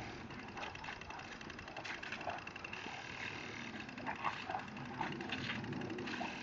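Steady hiss of water spraying from a garden hose, with a few short louder sounds over it.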